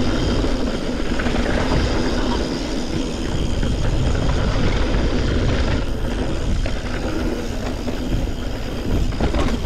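Wind buffeting the microphone and knobby tyres rolling over a dirt-and-gravel trail as a Yeti SB140 mountain bike descends at speed, with the frame and parts rattling.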